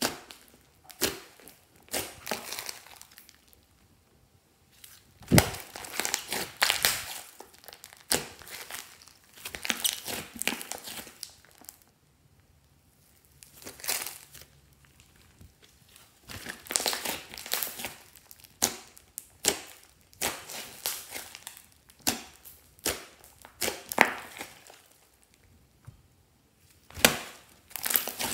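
Hands squeezing and pressing a large mound of thick slime: wet crackling and squishing in irregular bunches, with a few short pauses between.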